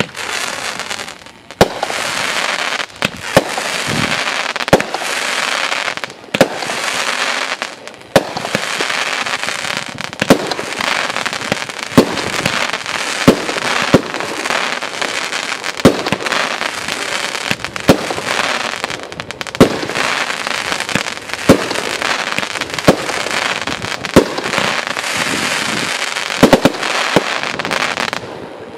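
OX503 multi-shot firework cake firing: a sharp bang roughly every second and a quarter, about twenty-five shots in all, over a dense continuous crackle from the glitter bursts.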